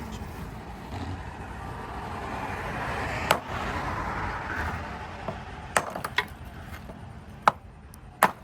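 A rushing hiss swells and fades, then about five sharp knocks strike at irregular intervals.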